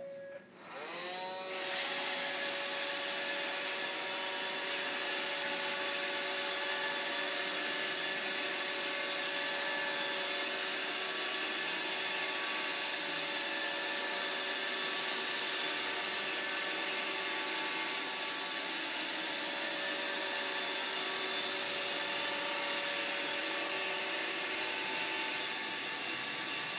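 Vacuum cleaner switched on: its motor spins up over about the first second and a half, then runs with a steady whine.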